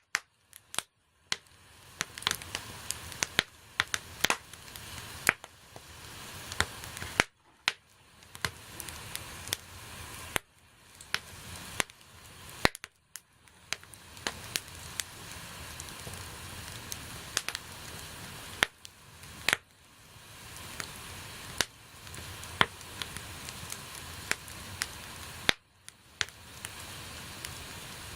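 Wood bonfire crackling, with many sharp pops and snaps over a steady hiss of burning. The hiss dips out and swells back several times.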